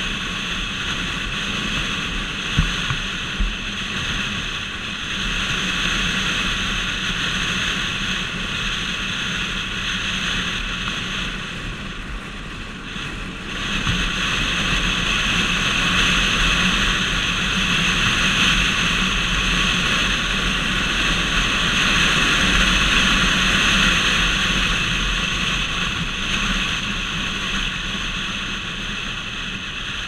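Motorcycle engine running at road speed, with wind and road noise. The sound dips briefly about twelve seconds in, then rises again, and there are a couple of short knocks about three seconds in.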